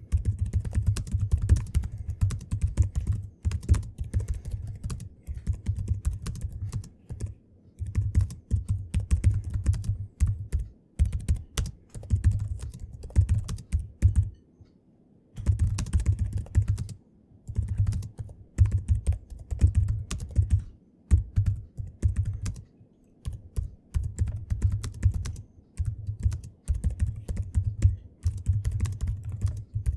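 Fast, harsh typing on a gaming computer keyboard: rapid key clicks, each with a low thud as the keys bottom out, in runs of a few seconds broken by short pauses.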